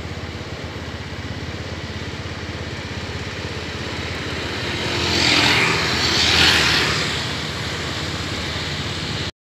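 Street traffic noise: a steady motor-vehicle rumble, with a vehicle passing close and loud about five to seven seconds in. The sound cuts off abruptly near the end.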